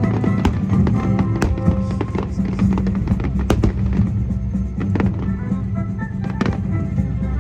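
Aerial fireworks going off in about half a dozen sharp, scattered bangs over loud pop music played through the show's loudspeakers.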